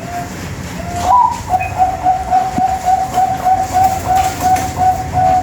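Bangkok-bred zebra dove (perkutut) singing: a short coo, a rising note about a second in, then a long run of quick rolling coos at one pitch, about three a second.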